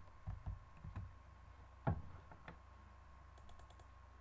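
Soft knocks, the loudest about two seconds in, then a quick run of faint computer-mouse clicks near the end, over a low hum and a faint steady tone.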